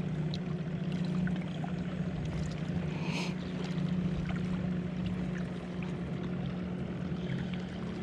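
Steady low drone of a boat engine running out on the lake, over small waves lapping against the rocky shore, with a short hiss about three seconds in.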